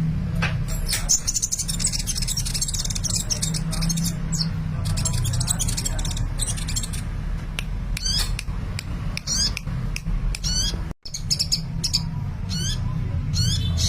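Sunbird singing steadily, a rapid run of high-pitched chirps, twitters and squiggly trills, over a steady low hum.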